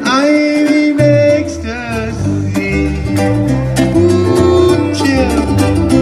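Ukulele strummed with a guitar and a bass line, playing an upbeat song; a voice sings over it near the start.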